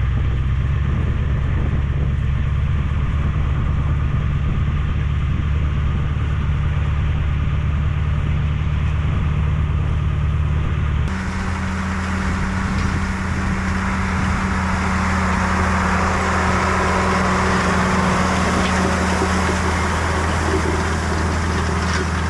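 A motor vehicle's engine running steadily, a low drone with road or wind hiss over it. About 11 seconds in the sound changes abruptly, with more hiss and a slightly different engine note.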